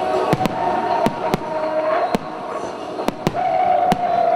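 Fireworks going off in a rapid, irregular series of sharp bangs, about nine in four seconds, over a sustained droning tone.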